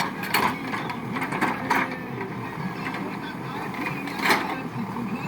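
ACE backhoe loader's diesel engine running steadily, with several short, sharp louder sounds over it, the loudest about four seconds in.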